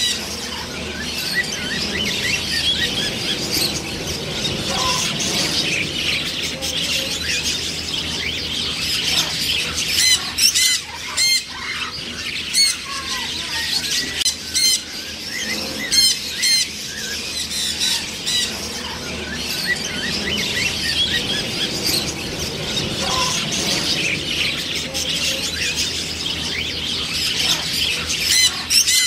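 A flock of macaws squawking and chattering without a break, with loud, harsh squawks standing out now and then over the steady background calling.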